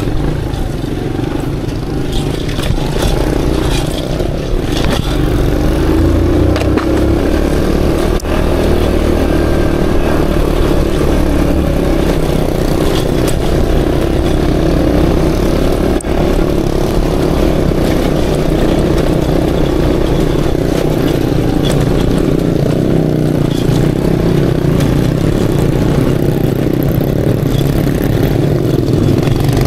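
Aveta Ranger Max cub-style trail motorcycle engine running steadily as the bike is ridden off-road, with a few short knocks over the drone.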